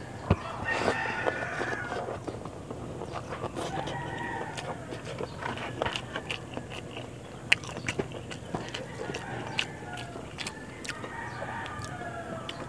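Roosters crowing in the background, several long crows a few seconds apart, with scattered small clicks and smacks of eating rice and fish by hand.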